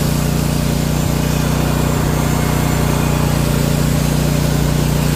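Small engine of a compact tracked walk-behind trencher running steadily under load as its digging chain cuts a trench through dirt.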